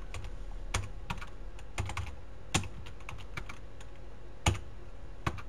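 Computer keyboard typing: slow, irregular key clicks with pauses between them.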